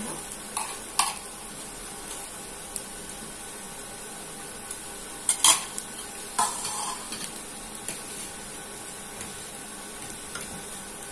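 A steel spoon and bowl clinking and scraping as the bowl is stirred and moved, with the loudest clink about five and a half seconds in. Under it runs a steady light sizzle of potato-sabudana cutlets frying on a tawa.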